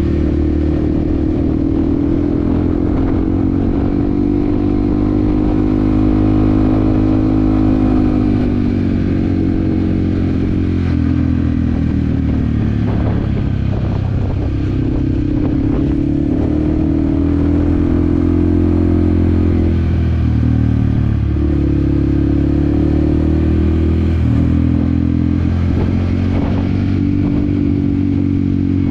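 Yamaha WR155R's single-cylinder engine running under way, its pitch swelling and dipping in slow, smooth arcs as the throttle is opened and eased off.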